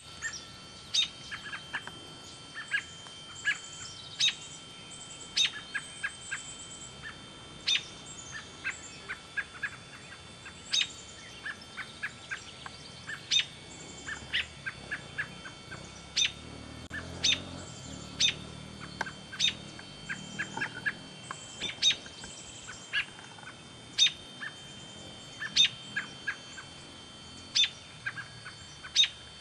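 American robin fledgling giving short, sharp call notes, roughly one or two a second at irregular spacing, with some quicker runs of softer notes in between.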